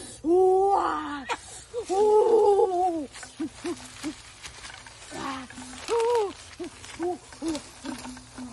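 A trapped chicken, held upside down by its feet, squawking: three long drawn-out squawks with runs of short clucks between them. Dry leaves crackle underfoot as it is carried away.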